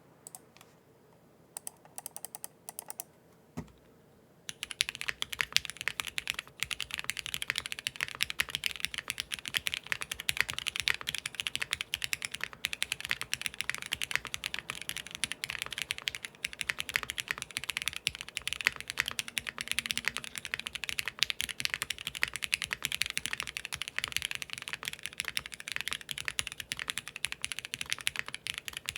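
Typing on a Qwertykeys QK75 mechanical keyboard with Cherry MX Black linear switches on an aluminium plate and GMK keycaps, built with no foam. A few separate keystrokes come first, then fast continuous typing starts about four and a half seconds in.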